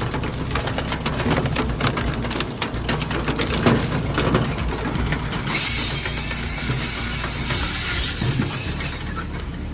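Machinery clattering with many rapid clicks and knocks, then a loud, steady hiss from about halfway through until just before the end.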